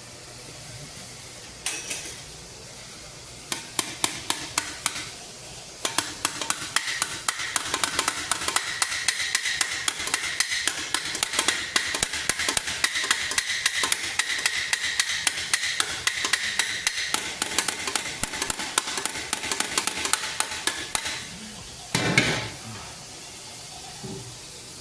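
Hand hammer peening rivets on a steel great helm: a few scattered blows, then a fast steady run of about five blows a second for some fifteen seconds, the helmet ringing under them. One louder knock near the end.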